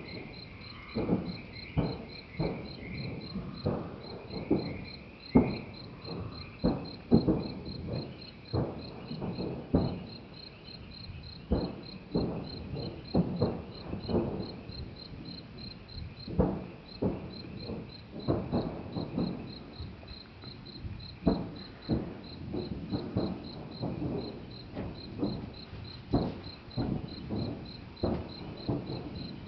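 Hail cannons firing over and over: irregular deep booms, roughly one or two a second and uneven in strength, some overlapping. Crickets chirp steadily and rapidly underneath.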